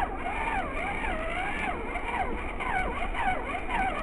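Axial SCX24 micro rock crawler's electric motor and gear drive whining, the pitch rising and falling over and over with short throttle blips as it crawls over rocks.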